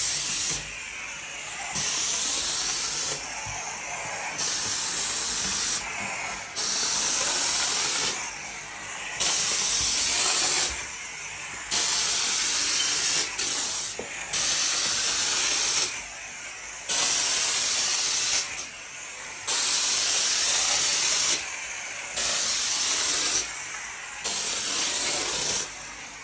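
Upright steam mop hissing as it puffs steam onto a hard floor, in repeated loud bursts of about a second and a half, roughly one every two and a half seconds, with a softer hiss between them.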